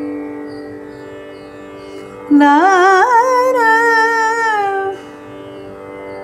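A steady tanpura drone, with a voice singing one phrase in raga Natai about two seconds in. The note slides up and is held with wide oscillating gamakas for about two and a half seconds, then stops, leaving the drone.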